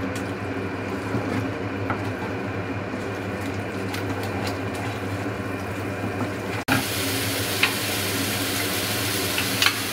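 Spice paste (masala) sizzling steadily as it fries in ghee and oil in a pan, with a few faint ticks of stirring. After a brief break about two-thirds through, the sizzle comes back slightly louder and brighter.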